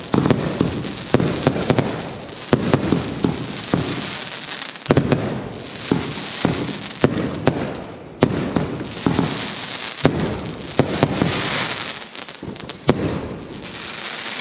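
Fireworks display: sharp bangs of bursting shells follow one another about once or twice a second over a continuous crackle and rumble.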